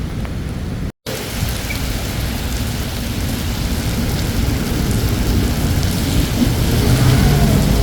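Steady heavy rain hiss with a deep low rumble underneath. It cuts out for an instant about a second in, then comes back and builds louder toward the end as the rumble grows.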